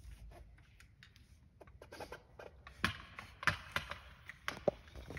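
A run of light, irregular clicks, taps and scratches from a small wooden model car being handled and adjusted by hand, with its wheels turned. They grow busier and louder about halfway through.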